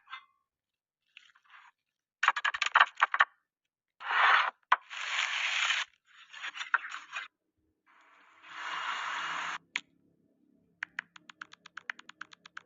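Kitchen cooking sounds in short separate bursts: scraping and crunching, with clusters of sharp clicks between them, and a quick run of clicks near the end.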